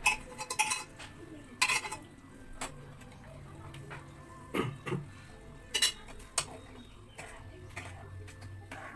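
Metal spoon knocking and scraping against a steel kadhai as thick chole masala is stirred, with irregular clinks, a few louder than the rest, over a steady low hum.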